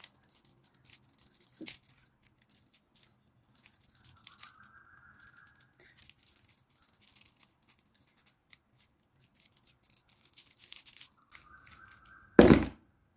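Plastic 1x3x3 fidget puzzle cube being turned rapidly in the hands: a run of small clicks, rattles and scrapes as the layers are twisted. A loud sharp thump comes near the end.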